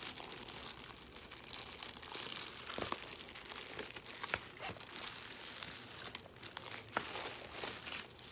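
Thin clear plastic bag crinkling and rustling as a laptop is slid out of it, with a few sharp clicks along the way.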